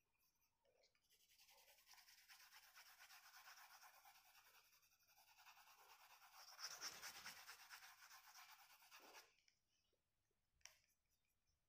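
Faint scratching of a colour pencil on drawing paper in quick back-and-forth shading strokes, filling in a green grass background; the shading goes on for about eight seconds and then stops.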